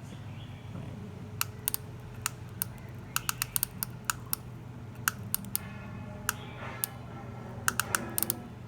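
Irregular sharp clicks, some in quick clusters, from working a solder-feeding soldering gun, over a low steady hum.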